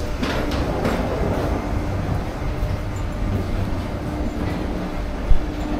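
Footsteps and rolling luggage on a jet bridge floor over a steady rumbling hum, with a few knocks in the first second and one loud thump about five seconds in.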